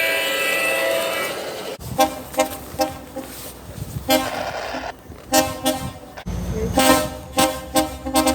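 Train horn sounding a held chord that fades and breaks off, then a quick series of short toots. Another run of short toots comes over a low rumble near the end.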